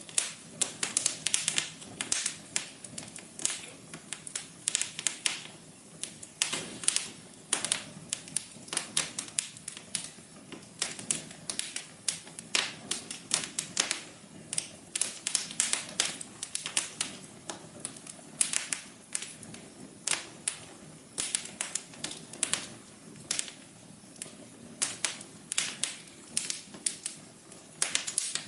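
Wood fire crackling in a fireplace: a continuous, irregular run of sharp pops and snaps over a soft low hiss.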